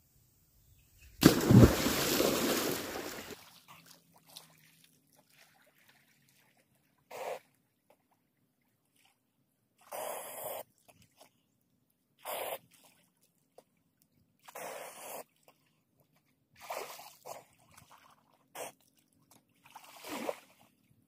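A person jumping into water, a big splash about a second in that fades over about two seconds, then short separate splashes every couple of seconds as he moves and swims in the water.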